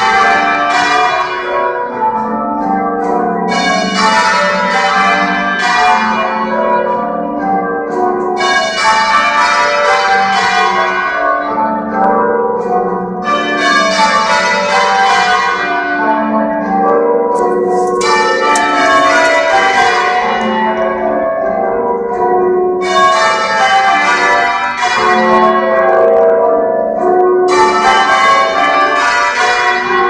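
Change ringing on the Washington National Cathedral's ring of ten tower bells, rung by hand with ropes: the bells strike one after another in continuous rows, their ringing overlapping, with a fresh surge of strikes about every four and a half seconds.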